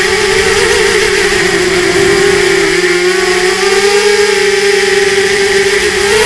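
Electric motors and propellers of an RMRC Mudskipper 250 FPV quadcopter whining steadily in flight, recorded close up by its onboard camera. The pitch dips and rises slightly as the throttle changes.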